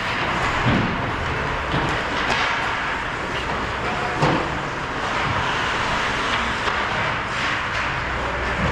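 Steady ice-rink noise of skates on the ice and the arena's ventilation hum during a hockey game, with a few sharp knocks from play, the loudest about four seconds in.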